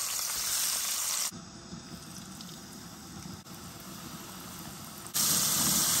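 Battered catfish frying in about half an inch of hot avocado oil in a frying pan, with a steady sizzle. The sizzle drops away abruptly a little over a second in to a much quieter stretch, then comes back loud near the end.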